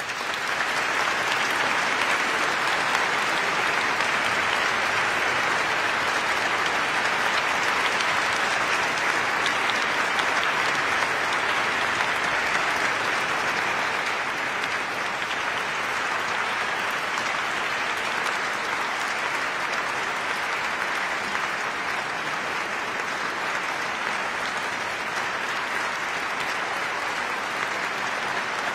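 Audience applauding steadily, a dense patter of many hands clapping that begins suddenly and eases off a little about halfway through.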